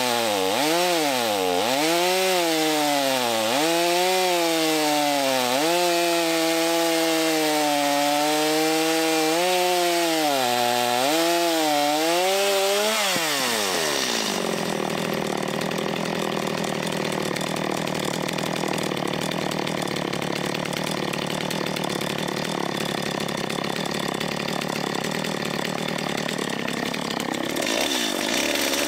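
Stihl MS250 two-stroke chainsaw, with a properly tensioned chain, cutting pin oak at high revs, its engine pitch dipping under load and recovering again and again. About 13 seconds in the revs drop away to a low idle, and near the end the saw revs up again.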